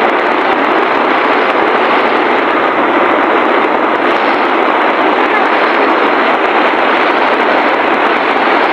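Heavy rain pelting the plastic rain cover of a moving motorcycle, mixed with road and wind noise: a loud, steady, dense hiss.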